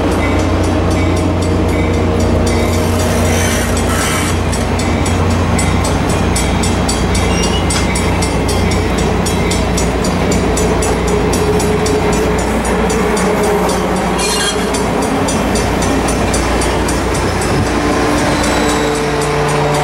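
Caltrain bilevel passenger cars rolling past close by: a steady rumble of steel wheels on rail with evenly repeating clicks and a low steady hum underneath.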